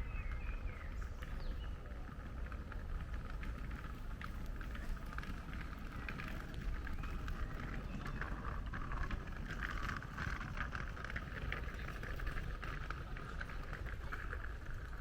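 Outdoor forest ambience: a steady low rumble under a dense, faint ticking hiss that swells slightly about ten seconds in.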